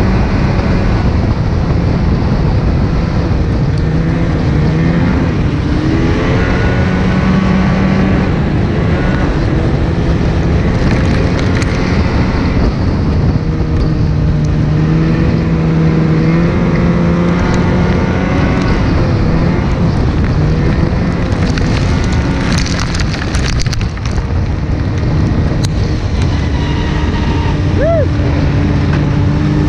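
Snowmobile engine running at speed on a trail, heard from the rider's seat. Its pitch rises and falls with the throttle.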